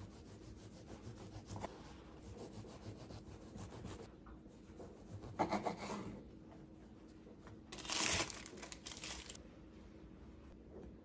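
A kitchen knife sawing back and forth through slices of whole-wheat bread on a wooden cutting board, trimming off the crusts: quick, even rasping strokes, with two louder stretches of scraping about five and eight seconds in.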